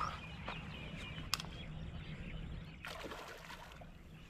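Faint splashing of water as a hooked catla thrashes at the surface during the fight, with a single sharp click about a second and a half in.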